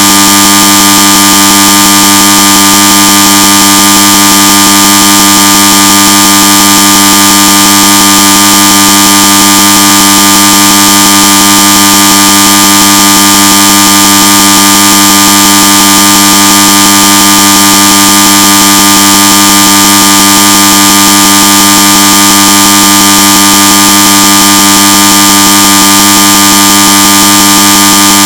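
Electric bell of the school-bell kind ringing continuously: a loud, steady buzzing ring that holds without a break.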